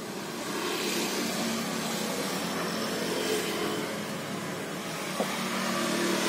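Steady engine noise that swells about a second in and holds, with one sharp click about five seconds in.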